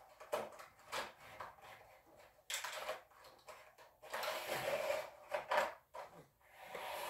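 Clear plastic packaging tray of small die-cast toy cars being handled: a string of light clicks and taps as the cars are moved and picked out. There are two longer rustling scrapes, one in the middle and one near the end.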